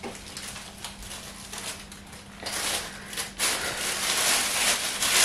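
Thin plastic carrier bag and paper crinkling and rustling as they are handled, louder from about halfway through.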